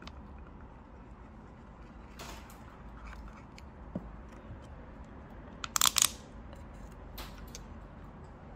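A corn straw stirring a thick blended smoothie in a stainless steel tumbler: soft scrapes and knocks, with a quick run of sharp clicks a little past halfway.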